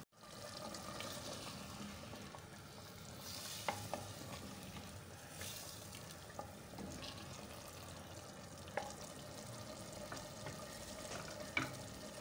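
Wooden spoon stirring thick beef and turnip curry in a clay pot, with a steady faint sizzle of the masala frying in oil and a few light knocks of the spoon against the pot.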